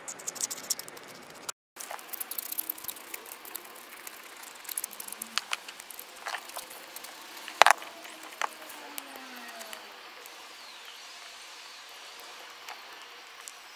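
Small metal parts of a Shimano Crane GS rear derailleur being worked with a pick and handled with gloved hands: a run of light clicks and taps, the loudest single click about eight seconds in. After that only faint rustling is left.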